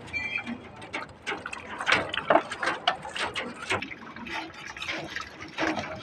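Ducklings dabbling and drinking from a basin of water: irregular splashing and quick clicking slurps of bills in the water. A brief high peep comes just after the start.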